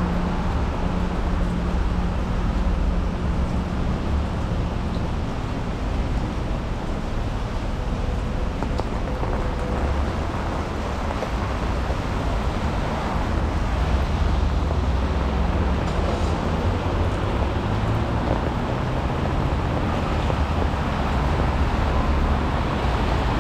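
Road traffic on a rain-wet street: a steady rumble of passing engines with tyre hiss.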